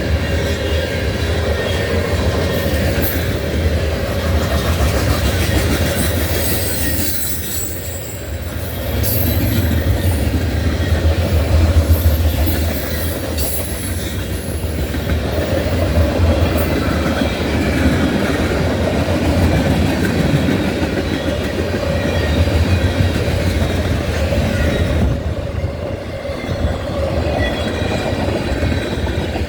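Freight cars of a Norfolk Southern manifest train rolling past at speed: a steady heavy rumble of steel wheels on rail, with clicking over rail joints. Brief high-pitched wheel squeals come and go, mostly in the first third.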